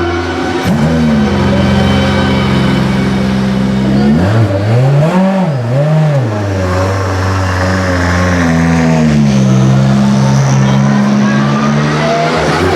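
Ferrari 488 GT3 EVO's twin-turbo V8 running at a steady, fairly low engine speed. About four to six seconds in it is revved up and down twice in quick blips, then settles back to an even note that dips slightly in pitch later on.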